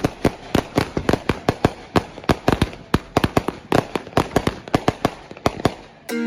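A string of firecrackers going off: rapid, irregular sharp bangs, several a second, that stop near the end.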